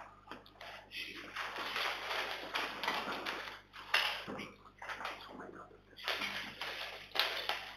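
Indistinct murmur of people talking quietly in a meeting room, mixed with irregular rustling and handling noises.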